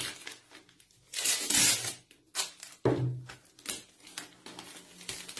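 Masking tape pulled off the roll in one loud rip about a second in, then crinkling of plastic wrapping and a few knocks as gloved hands press the tape strips down.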